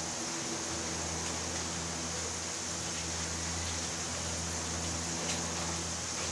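Potato fries deep-frying in hot oil: a steady sizzle, with a low steady hum underneath.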